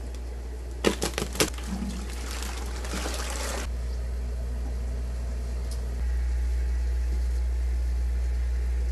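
Plastic fish bag crinkling a few times, then water and fish poured from the bag into a plastic bucket for about three seconds. After the pour stops there is a steady low hum.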